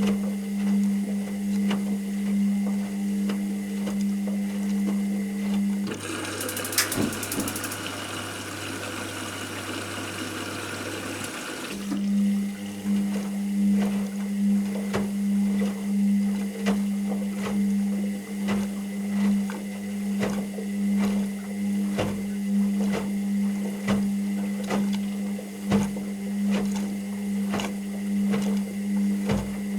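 Washing machine running mid-cycle: a steady motor hum with faint ticking. About six seconds in the motor stops and water hisses through the machine for about six seconds, then the motor hum starts again.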